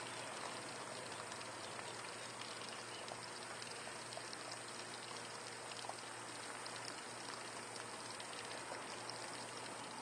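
Steady stream of water running from a solar water heater's clear plastic outlet tube and splashing onto gravel.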